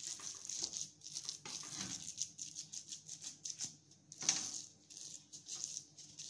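Wooden spoon stirring and pressing raw minced pork filling in a pan: irregular soft, wet squishing and scraping strokes, with a louder one about four seconds in.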